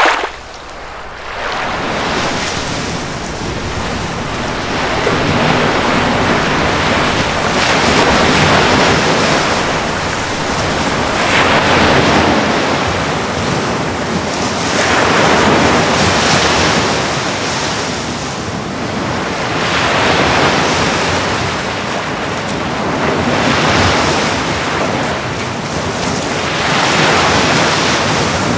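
Swimming-pool water surging and sloshing as an earthquake shakes the pool: a rushing, wave-like noise that swells and falls back about every four seconds.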